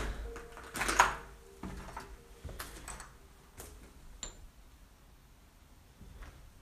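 Footsteps and knocks on a debris-strewn floor: scattered short clicks and thuds, the loudest about a second in, thinning out toward the end. Under them a faint held tone from background music dies away in the first few seconds.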